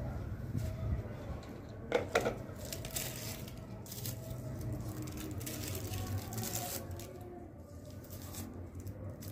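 Red onions being peeled and sliced with a knife on a plastic board: dry skins tearing and crackling and the blade cutting through the onion in short, irregular strokes, with a brief louder sound about two seconds in.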